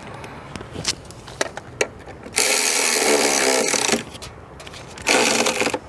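Cordless electric ratchet running in two bursts, about a second and a half and then about half a second, spinning down the nut on a car battery terminal clamp. A few light metal clicks come before the first burst.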